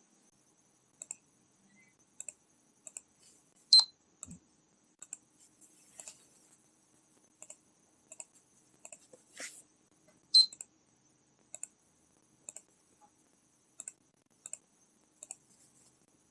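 Computer mouse clicking now and then, single and double clicks, with two louder sharp clicks about four and ten seconds in that carry a brief high tone.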